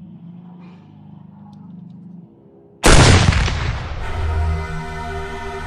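A faint low hum, then about three seconds in a sudden loud boom like a gunshot sound effect that runs straight into electronic music.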